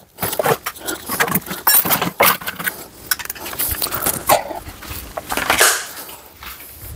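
Scattered clicks, knocks and light metallic clinks of hand tools being handled, uneven throughout.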